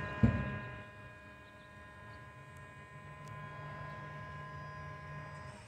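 Steady machinery hum with a high steady whine from the equipment of a concrete 3D house printer, the low hum growing stronger from about three seconds in. A single thump comes just after the start.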